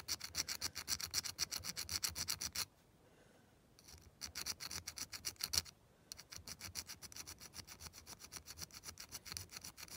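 Small rounded file rasping in quick short strokes on the bare metal body of a Corgi Rockets Volvo P1800 die-cast model, filing off casting lines. The strokes stop for about a second roughly three seconds in, resume, and pause briefly again near six seconds.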